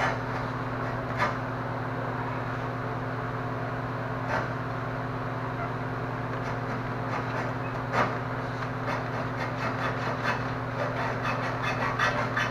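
Hand hacksaw cutting through a go-kart frame's metal tubing: a few scattered strokes at first, settling into a steady rhythm of about two to three strokes a second in the second half. A steady low hum runs underneath.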